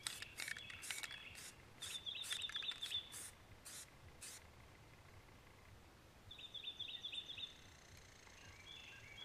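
Krylon aerosol spray-paint can hissing in a series of short bursts over the first half as paint is dabbed onto a deer skull. Birds chirp in quick trills twice.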